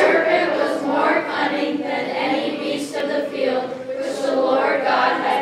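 A group of young teenage voices performing together in unison, a school choir.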